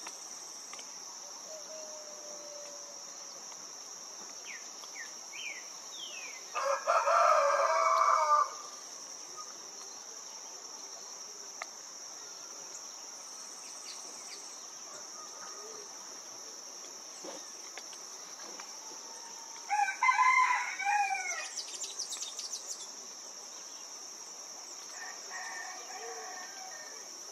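Steady high-pitched insect chorus, with a rooster crowing loudly about seven seconds in. A second loud bird call comes around twenty seconds in, and a fainter one near the end.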